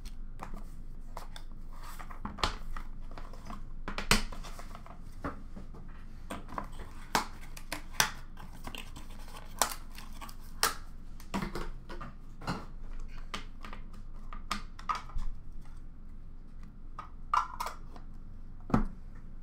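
Hands unpacking a hockey card box: irregular clicks, taps and light rustles of cardboard packaging and hard plastic card holders being handled and set down, with a few sharper clicks about four seconds in and near the end.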